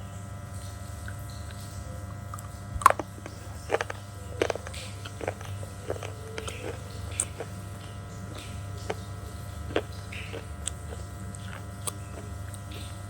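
Pieces of slate bitten and chewed close to the microphone. A loud crack comes about three seconds in, then a cluster of crunches over the next few seconds, then scattered softer crunches, over a steady electrical hum.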